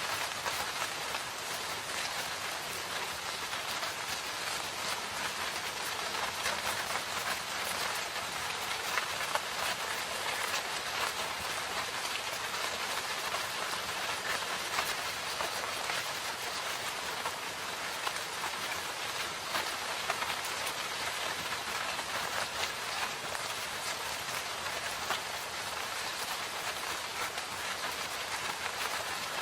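Steady rain falling in a forest, a constant hiss dotted with the patter of individual drops.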